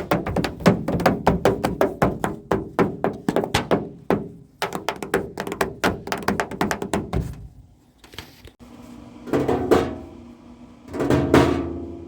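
Improvised drumming on household objects: a fast run of taps and knocks for about seven seconds, a short lull, then two louder bursts of hits that ring with a pitch.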